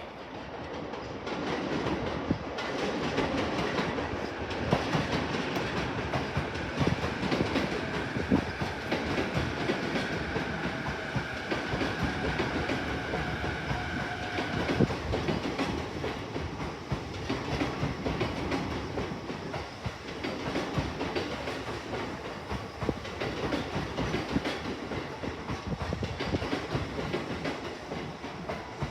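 Electric train running along the tracks, its wheels clattering over the rails, with a high steady whine for several seconds in the middle.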